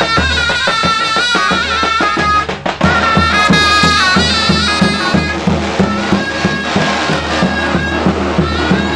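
Davul and zurna playing Turkish folk music: a shrill zurna melody with quick ornaments over a steady beat of the big davul drum. The playing drops briefly about two and a half seconds in, then carries on.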